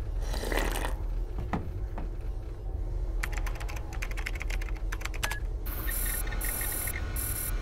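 A brief swish, then rapid typing on a computer keyboard, followed by three or four short bursts of electronic computer chirping as a terminal prompts for a login name.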